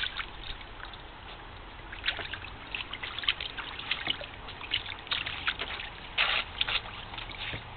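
Newfoundland puppies' paws splashing in the shallow water of a plastic kiddie pool in irregular short splashes, more often from about two seconds in, over the trickle of a garden hose refilling the pool.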